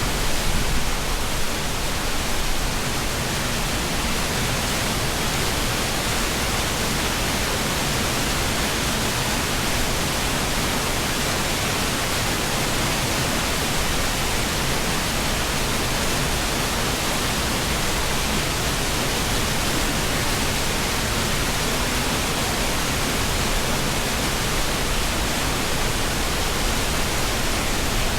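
Mountain river (the Boyana River) rushing steadily, an even, unbroken sound of flowing water.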